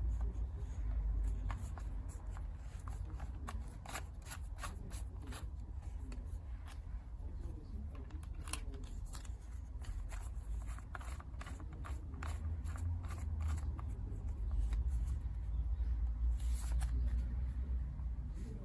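A run of small, irregular clicks and rattles, like objects being handled, over a steady low rumble.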